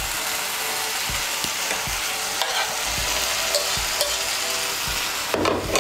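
Mustard-and-chilli masala sizzling in oil in a wok as fried pointed gourds (potol) are tipped in and stirred with a spatula. A steady sizzling hiss, with dull knocks from the spatula and pieces about every half second.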